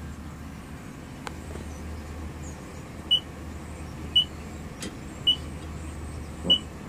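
Car wash code keypad beeping four times, one short high beep about a second apart as each digit of the wash code is pressed. Under it, the low steady hum of a pickup truck's engine idling.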